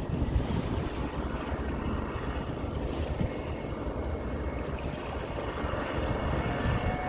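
Wind buffeting the microphone as a steady low rumbling noise.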